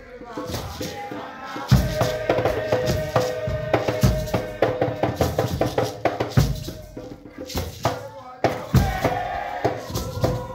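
Nyahbinghi drumming with group chanting: a deep bass-drum stroke every couple of seconds under quicker hand-drum beats, with voices singing over it.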